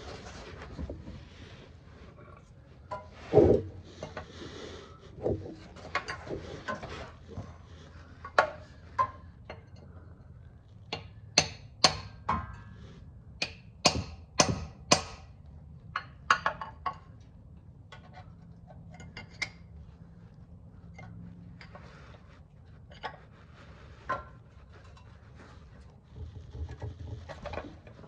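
Hand tools knocking and prying at the stuck oil pan of a Subaru Forester engine to break its seal: irregular sharp metallic knocks and clinks, loudest about three seconds in, with a quick run of them between about eleven and fifteen seconds.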